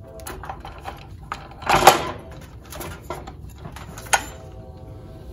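Steel transmission parts (planetary gears and thrust washers) clinking and clanking as they are handled and set down. There is a louder clank about two seconds in, and a sharp metallic clink that rings on briefly about four seconds in.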